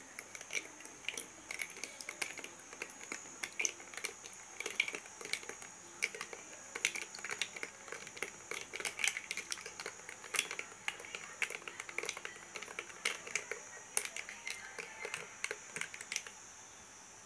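Metal spoon stirring ice cubes in a glass tumbler of water and mango pulp: a quick, irregular run of small clinks of spoon against glass and ice, which stops shortly before the end.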